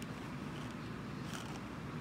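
Steady low background noise: room tone with a faint low rumble and hiss, and no distinct sound event.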